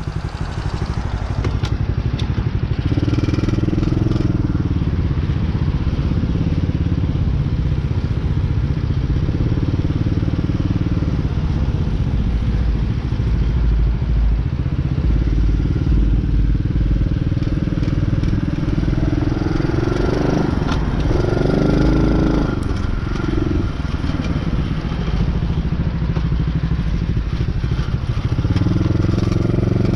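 Small TaoTao single-cylinder dirt bike engine running under way, its note rising and falling with the throttle, with a few quick revs about twenty seconds in. Wind rumble on the microphone runs under it.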